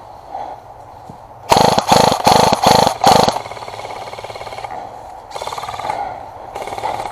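Airsoft electric gun firing on full auto: five short, loud bursts in quick succession about a second and a half in, then longer, quieter bursts of rapid fire.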